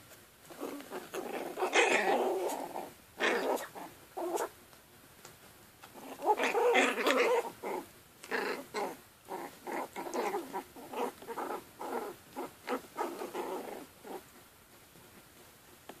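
Chihuahua puppies growling in play, in bursts, loudest about two seconds in and again around seven seconds, then a run of short growls.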